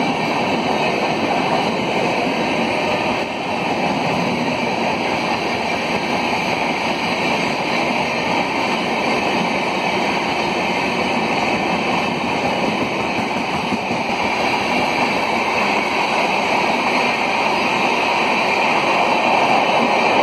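Passenger train coaches rolling past close at speed: a loud, steady rushing rumble of wheels on rails that holds evenly throughout.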